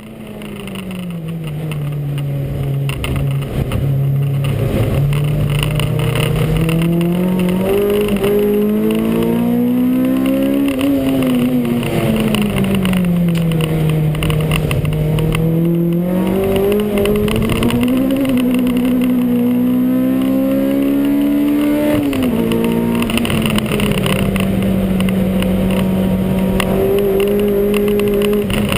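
Track car's engine running hard, its pitch climbing and falling smoothly over several seconds at a time as it accelerates and lifts. About three-quarters of the way through the revs drop sharply, then the engine holds a steady note.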